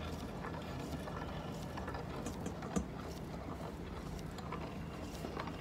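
Metal meat grinder grinding raw potato: a steady mechanical running with scattered small crunching clicks as the potato is forced through, and one sharper click a little under three seconds in.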